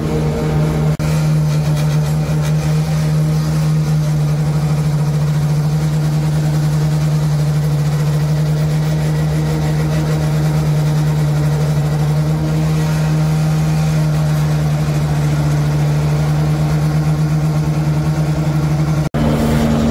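Wirtgen SP-15 slipform kerb paver running as it slipforms a concrete kerb, its six mould vibrators going: a steady, loud hum on one pitch.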